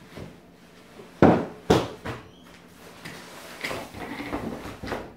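A folded portable travel cot being handled in its fabric carry bag: two loud knocks of the frame a little after a second in, then lighter fabric rustling and small clicks.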